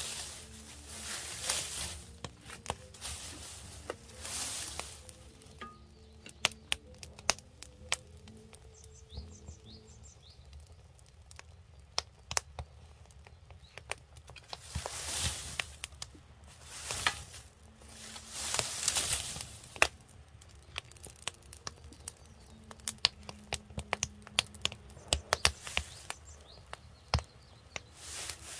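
Wood fire crackling in an outdoor firebox under a cast-iron cauldron, with many sharp snaps and pops. A few louder rushing swells of about a second each come and go.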